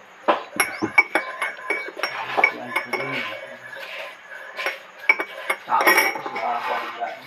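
A metal spoon stirring coffee in a ceramic cup, clinking against the cup many times at an uneven pace, some clinks ringing briefly.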